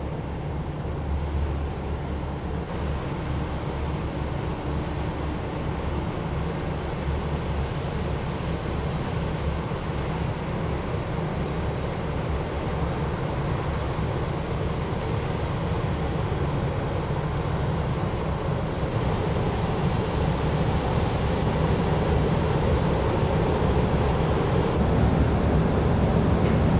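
Low, steady engine rumble of a passing 129.6 m container ship. The rush of water along its hull and bow swells louder toward the end.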